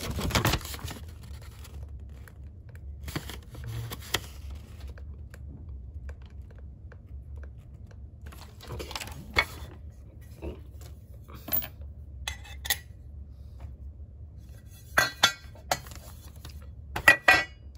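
Parts of a soldering iron stand being handled and fitted together: scattered light clinks and knocks in small clusters, the loudest a few in quick succession near the end, over a steady low hum.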